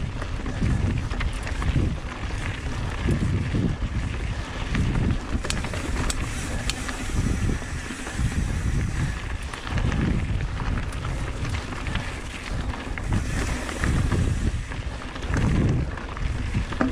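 Wind buffeting the microphone in uneven gusts during a mountain bike descent, with tyres rolling over rough dirt and scattered clicks and rattles from the bike over rocks.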